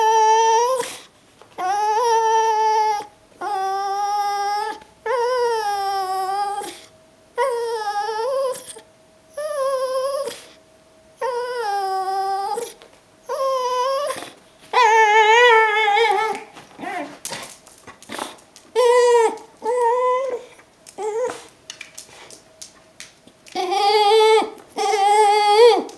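Brittany spaniel whining over and over as an excited greeting, a string of long wavering high whimpers about a second each. The calls break into shorter, choppier whines and yelps partway through, then two more long whines come near the end.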